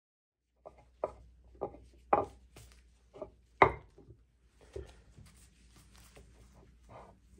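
A series of sharp wooden knocks and taps, the loudest about three and a half seconds in, then from about five seconds a cloth rubbing softly over a hardwood cutting board.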